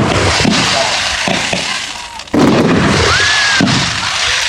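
Fireworks exploding: crackle from a burst continues at first, then a sudden loud firework bang about two seconds in, followed by crackling, with a short whistle that rises and then levels off about a second later.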